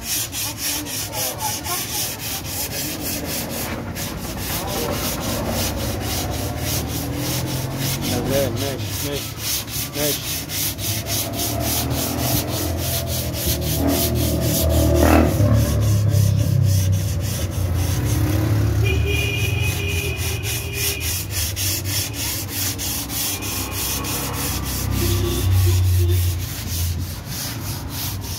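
Sandpaper rubbed by hand over body filler on a steel car door, dry sanding in quick, even back-and-forth strokes to flatten the filler before paint.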